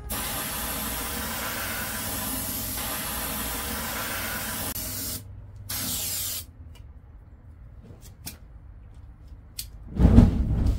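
An aerosol can of starting fluid sprays in a long hiss of about five seconds into the gap between a tractor tyre's bead and its rim, followed by a second short burst. After a few faint clicks, the ether vapour ignites with a loud whoosh near the end, in an attempt to seat the loose tyre bead.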